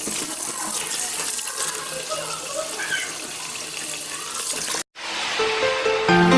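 Steady rushing water, cut off abruptly about five seconds in, after which soft instrumental music begins.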